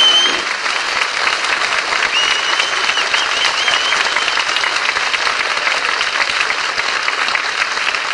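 Radio studio audience applauding steadily, the music before it ending just as the applause takes over. A wavering high whistle rises over the clapping about two seconds in.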